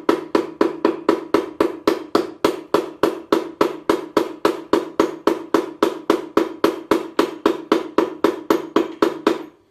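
Hammer blows on a piece of pipe used as a drift, driving a part onto a gearbox shaft: an even run of sharp metallic strikes, about four a second, the pipe ringing between blows. The strikes stop near the end, once the part is seated.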